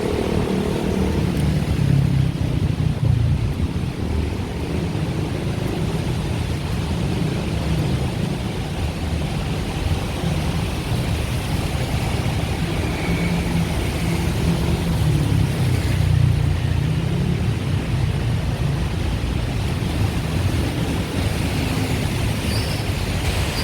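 Steady road traffic, a continuous low engine rumble from cars and other vehicles moving along a busy city street.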